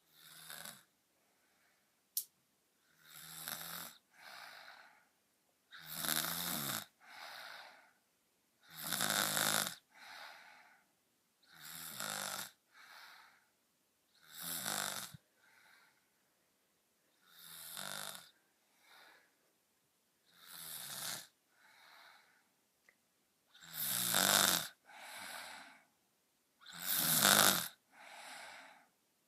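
A girl snoring deeply in a slow, regular rhythm: a louder snore followed about a second later by a softer one, the pair repeating roughly every three seconds.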